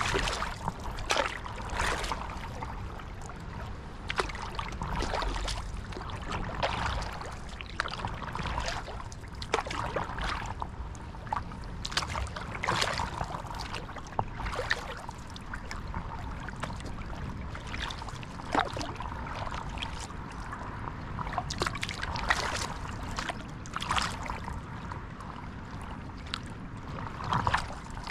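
Water sounds from a stand-up paddleboard on open water: irregular small splashes and drips around the board and paddle, over a steady low rumble.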